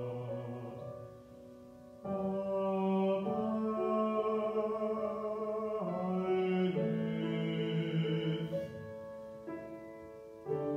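Grand piano playing held chords with a man singing over them. The music drops quiet about a second in, comes back fuller at about two seconds in, and the chords change every few seconds.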